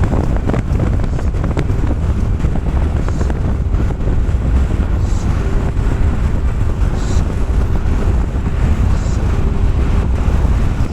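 Wind buffeting the microphone, a loud steady low rumble, with a faint steady hum joining about five seconds in.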